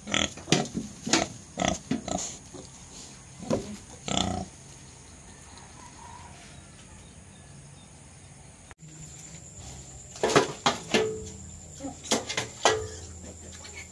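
Native pigs making many short calls in quick succession, in two bouts separated by a quieter stretch of several seconds.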